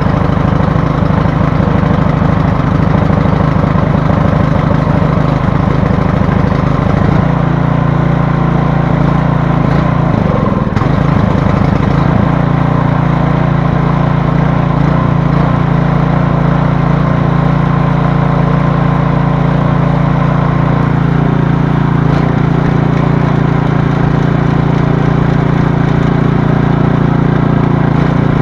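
Small gasoline engine of a PowerSmart snow thrower running steadily. Its note shifts about seven seconds in, wavers briefly a few seconds later, then settles.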